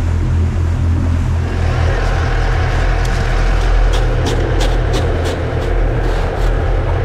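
Boat engine running steadily underway, with rushing water noise. From about three seconds in, a quick run of sharp clicks and clatters as crushed ice is scooped with a plastic scoop over fish in an insulated fish bag.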